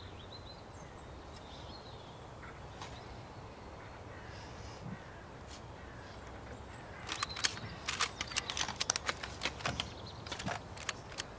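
Earth being shovelled into a grave: a quick, irregular run of sharp crackles and clicks of soil and clods landing, starting about seven seconds in and lasting about four seconds, over faint birdsong.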